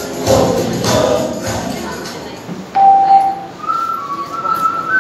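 Backing music with singing plays and fades out about two seconds in. Then someone whistles long, steady held notes: one lower note, then several higher ones.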